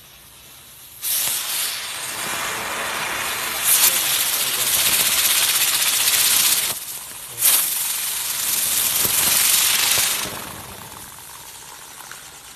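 Small novelty ground firework hissing as it sprays sparks and smoke. It starts suddenly about a second in, drops off briefly past the middle, flares again, then dies away a couple of seconds before the end.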